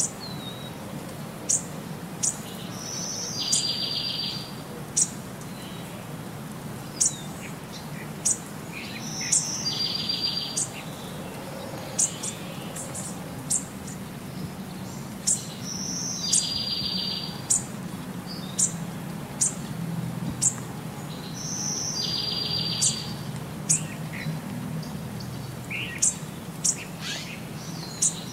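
Birds chirping: short high chirps, with a rapid buzzy trill that comes back about every six and a half seconds, over a steady low hum. The pattern repeats evenly, like a looped nature-sound track.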